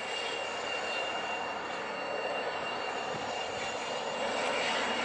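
Twin turbofan engines of a Dornier 328JET, Pratt & Whitney Canada PW306Bs, running at taxi power as the jet rolls away. The sound is a steady rushing hiss with a thin, steady high whine.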